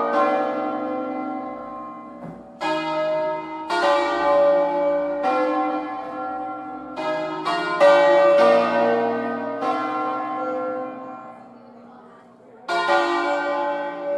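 A ring of five hand-rung church bells in B-flat, cast in 1859 by Felice Bizzozero, swinging full circle in a distesa, each clapper strike ringing out and overlapping the next. The strikes come irregularly, several in quick succession, then die away for about three seconds before fresh strikes near the end.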